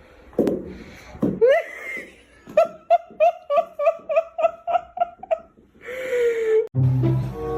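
A person laughing in an even run of short 'ha' bursts, about four a second, after a couple of sharp knocks. Music cuts in near the end.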